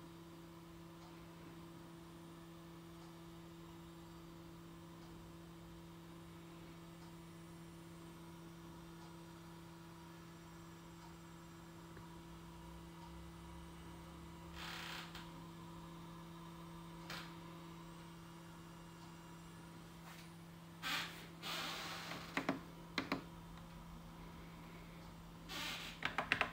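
Faint, steady electrical hum. Brief knocks and clicks come in the second half, with buttons pressed on a Yamaha RS7000 sequencer near the end.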